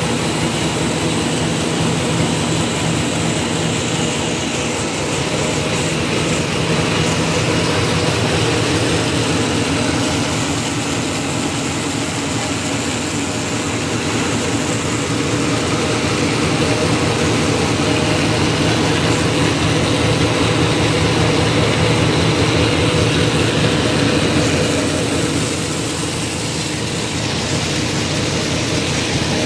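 RZJD 250J paper bag making machine with an inline four-colour printing unit running, a steady dense mechanical noise from its rollers and drive as the kraft paper web feeds through, easing off slightly near the end.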